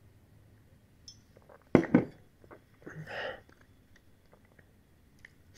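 Drinking from a soda bottle: quiet sipping, then two sharp knocks close together about two seconds in, and a short breathy sound a second later.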